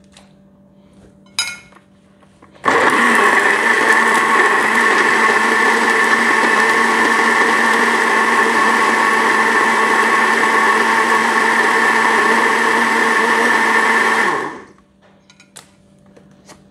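Electric blender motor running steadily for about twelve seconds, puréeing a sauce, then switching off. A short clatter comes about a second before it starts.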